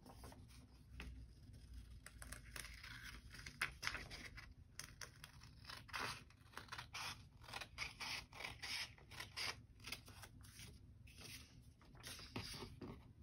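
Scissors cutting through a folded sheet of printer paper in a run of short, faint snips.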